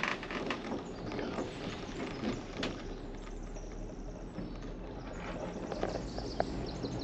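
Irregular clicking and knocking from a moving aerial gondola cabin and its running gear on the haul cable, over a low steady rumble, heard from inside the cabin.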